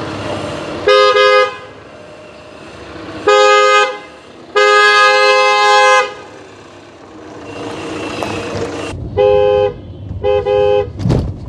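Original Hyundai Creta disc-type horns fitted to a Tata Nexon, sounding as a two-tone pair. There are two short honks, then a longer one of about a second and a half, and two more short honks near the end heard from inside the car's cabin.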